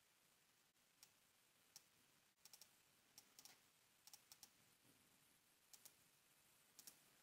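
Faint clicks of a computer mouse, a dozen or more scattered through, several coming in quick pairs and clusters like double-clicks, over near-silent room tone.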